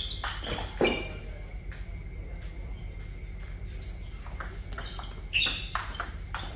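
Table tennis rally: the celluloid-type plastic ball clicking sharply off the rubber paddles and bouncing on the table, a quick irregular series of knocks, loudest about a second in and again near the end.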